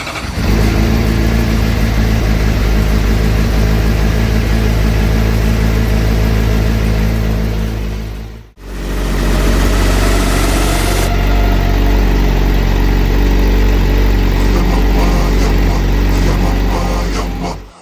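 2015 Suzuki GSX-R600's inline-four engine running at a steady idle, with a sudden brief break about halfway through before it carries on unchanged.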